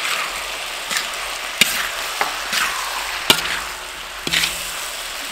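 Food sizzling in a hot wok as a metal spatula stirs and tosses it, with about five sharp knocks and scrapes of the spatula against the wok.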